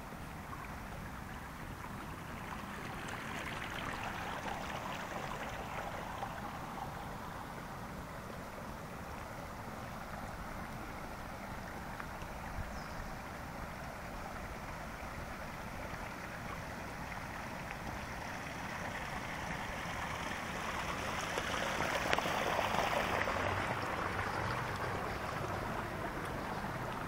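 Shallow water running down a narrow stone-lined channel: a steady rushing that swells louder a few seconds in and again near the end.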